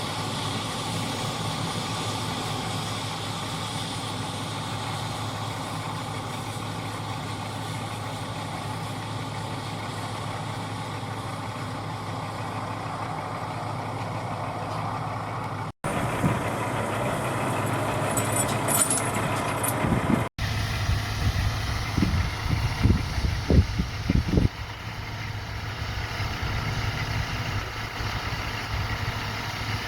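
Diesel engines of large harvest machinery running steadily with a constant low hum, broken by two abrupt cuts about halfway through. A few low thumps follow soon after.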